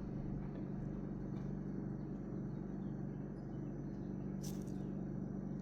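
Steady low background hum from a running motor or appliance, with one brief soft rustle about four and a half seconds in.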